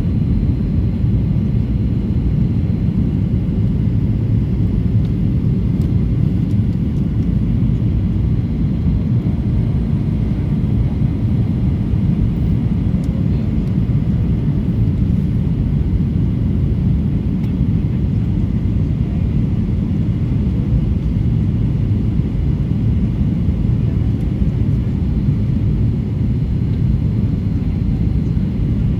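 Boeing 737-800 airliner noise: a steady low rumble that holds even throughout, with no distinct events.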